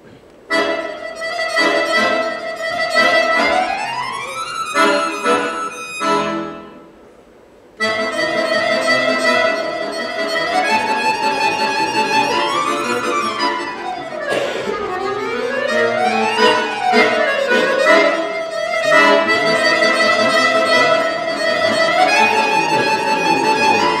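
Bayan (Russian chromatic button accordion) played solo. It comes in about half a second in with held chords and fast rising runs, dies away to a pause of about a second roughly a third of the way through, then plays on with rapid runs sweeping up and down over held notes.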